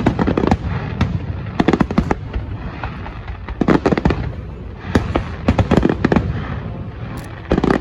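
Aerial fireworks bursting: clusters of sharp bangs and rapid crackling volleys, several bursts a second at times, over a continuous low rumble.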